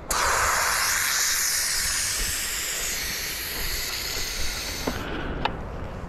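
Pressure cooker venting steam through its release valve: a loud, steady hiss that starts suddenly, eases off a little, and cuts off about five seconds in.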